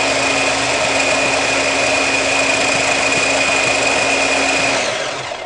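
Electric hand blender motor running steadily with a high whine on its chopper bowl attachment, blending tofu with water into soy broth; it winds down and stops near the end.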